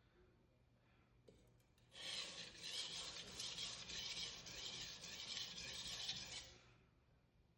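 Steel knife blade grinding back and forth on a 400 grit Naniwa waterstone, a steady wet scraping that starts about two seconds in and stops about a second before the end. This is the bevel being set at about 15 degrees to raise a burr along the edge.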